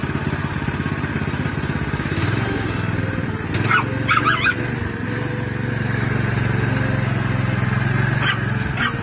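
Small single-cylinder gasoline engine on a converted EZ-Go golf cart running as the cart drives, its note stepping up about two seconds in. Dogs bark about four seconds in and again near the end.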